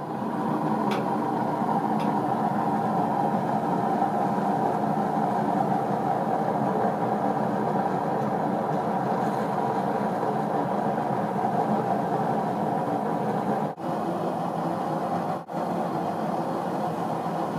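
Propane burner firing into a small paint-can furnace, running with a loud, steady noise. The sound breaks off twice briefly near the end.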